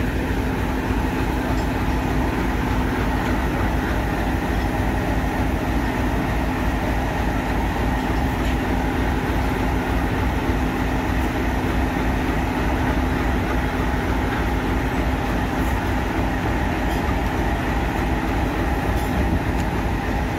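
Diesel locomotive standing with its engine idling: a steady low rumble and hum with no change in pace.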